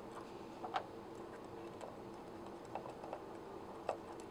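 Faint, sharp metallic clicks and ticks from an Allen key and small hex bolts being handled on a metal pulley housing cover, a few separate clicks about a second apart, over a steady low hum.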